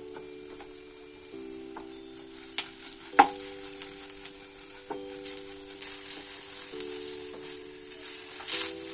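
Marinated okra sticks sizzling as they fry in oil in a kadai, stirred with a slotted wooden spatula that scrapes and taps the pan, with one sharp knock about three seconds in.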